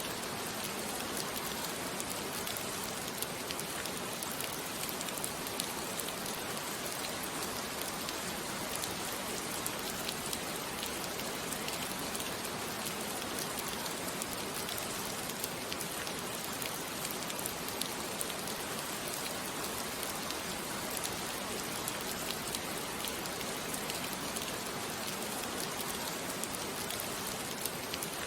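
Steady rain falling, an even hiss with many fine droplet ticks on a surface.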